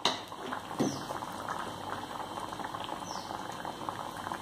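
Thick sardine curry bubbling in an earthenware pot, a steady dense crackle of popping bubbles, with the oil already risen to the top. A short knock comes right at the start.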